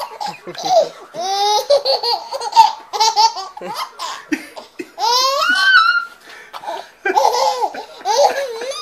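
A baby laughing hard in repeated high-pitched bursts, with a longer rising squeal about five seconds in.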